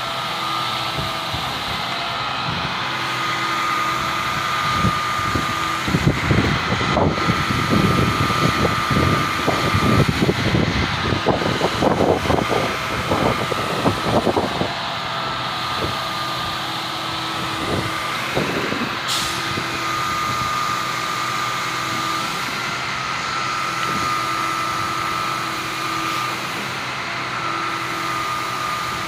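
Putzmeister truck-mounted concrete boom pump running while pumping concrete through its boom and hose: a steady mechanical drone whose tone dips about every four seconds. Between about 6 and 15 seconds in, loud irregular knocking and clattering sound over it.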